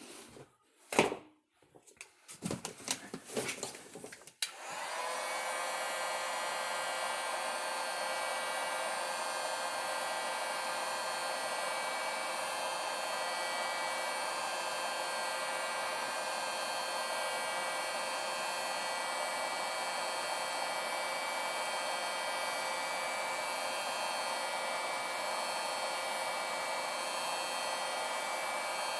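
A few knocks and clicks of parts being handled, then about four seconds in a heat gun switches on and runs steadily, a blowing rush with a steady fan whine. It is heating the chainsaw crankcase bearing for a hot/cold crankshaft install.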